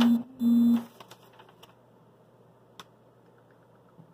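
A sheet of paper being handled close to the microphone. Near the start come two short, loud, steady hums, each under half a second. After them there are only a few light clicks and taps.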